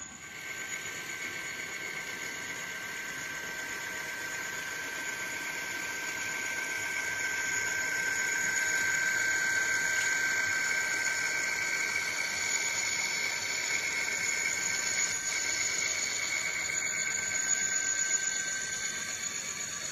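N scale Bachmann Dash 8-40CW model diesel locomotive with a DCC sound decoder, running with its train past the microphone: a steady high whine with running noise from the small speaker and mechanism. It grows louder toward the middle as the locomotives pass.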